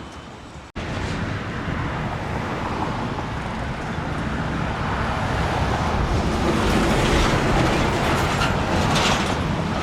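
Steady vehicle noise, a rumble and hiss that grows louder through the middle and eases off near the end.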